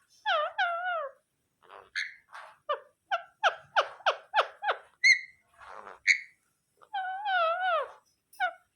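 Indian ringneck parakeet chattering. It gives two wavering notes, then a quick run of about six short sharp chirps and a couple of high squeaks, then a longer wavering call that drops in pitch at the end.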